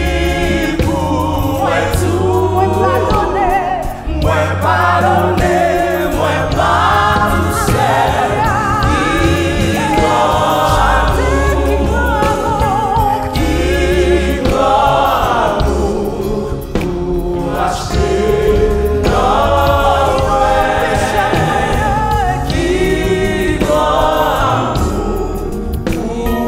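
Gospel worship song in Haitian Creole: a woman sings the lead with a backing choir over keyboard accompaniment with sustained low notes.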